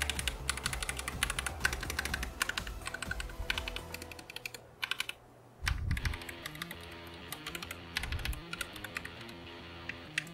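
Royal Kludge RK96 mechanical keyboard with pre-lubed linear Viridian switches being typed on: rapid keystrokes for the first few seconds, then slower single key presses, with a few heavier, deeper presses about six seconds in. Background music plays underneath.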